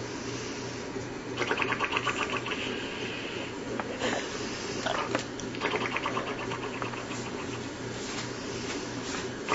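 A person snoring: a fast fluttering snore about two seconds long on each breath, heard twice with a third beginning near the end, over a steady low hum.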